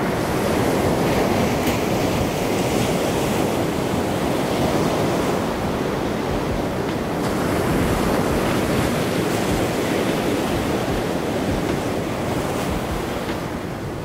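Ocean surf washing onto a sandy beach: a steady rush of breaking waves that swells and eases.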